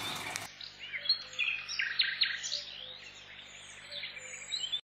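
Small birds chirping and twittering in many short, quick calls, cutting off suddenly near the end. In the first half second, liquid trickles through a funnel into a plastic bottle.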